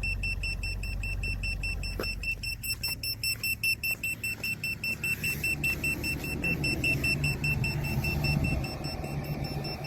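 Carbon monoxide detector alarm beeping rapidly and steadily, set off by exhaust gas at the tailpipe, which shows the detector is working. Underneath, the low rumble of the 2015 Chevrolet Trax's engine idling.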